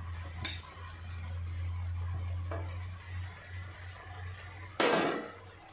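Quiet kitchen sounds of chopped bathua greens being dropped by hand into an aluminium kadhai, over a low steady hum, with a light tap about half a second in and one short loud noise just before the end.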